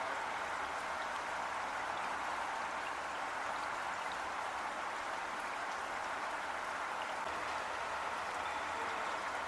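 Heavy rain falling steadily, an even hiss with faint drop ticks.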